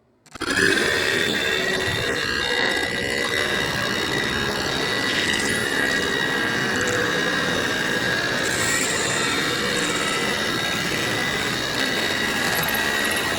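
A man's burp heavily altered with audio effects into a long, steady, noisy drone with a held high whine, starting abruptly about half a second in.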